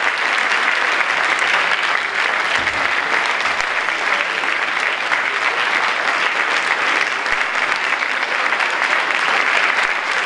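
Audience applauding, a steady dense clapping that holds at one level.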